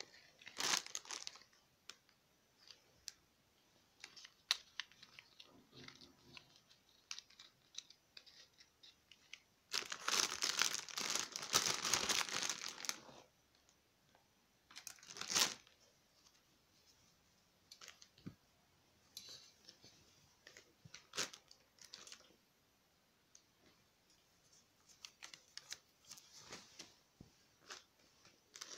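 Paper and plastic wrappers of a travel hygiene kit being handled and opened: scattered rustles and clicks, with a longer stretch of tearing and crinkling wrapper about ten seconds in that lasts about three seconds, and a shorter burst soon after.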